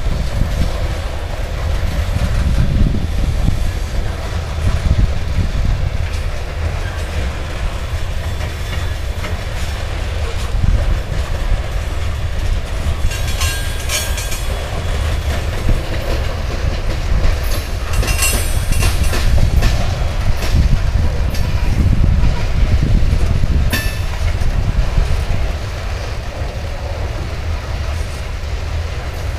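Loaded covered hopper cars of a grain train rolling past: a steady heavy rumble with the clatter of wheels on the rails, and short high-pitched wheel squeals twice around the middle.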